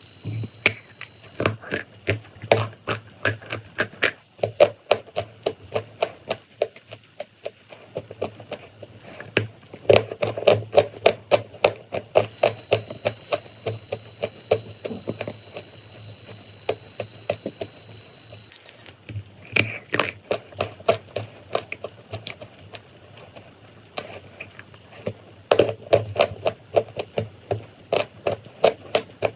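Chalk and clay crunching: rapid crisp cracks and crackles, several a second, in runs broken by short pauses.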